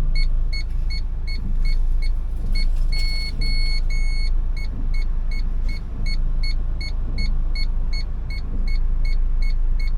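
Car's reversing parking-sensor radar beeping: a steady series of short high beeps, about three a second, which turn into longer, nearly unbroken tones about three seconds in, the warning that an obstacle is close behind, then go back to short beeps. The engine runs low underneath.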